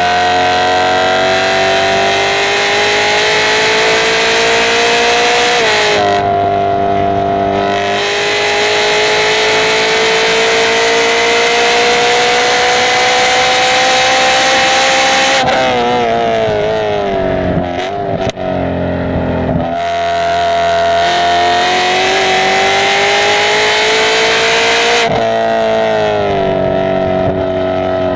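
Race-track car engine at full throttle, its pitch climbing steadily with an upshift about six seconds in. Past the middle it falls in steps through downshifts under braking, with a few short breaks in the sound, then climbs again and drops once more near the end.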